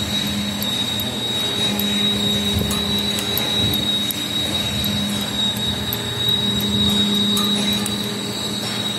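RB90 portable line boring machine running a facing cut on a steel flange: a steady high-pitched whine from the drive, under a lower hum that swells and fades every second or two as the facing head turns and the tool cuts.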